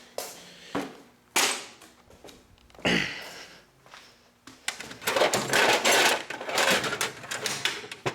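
Objects being handled: a few separate knocks, then from about halfway a few seconds of dense, rapid clattering and rustling.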